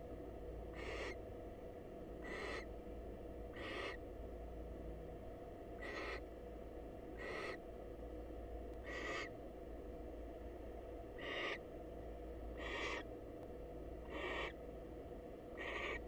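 Barn owl giving a series of short, raspy, hissing calls, about one every second and a half, ten in all, over a faint steady electrical hum.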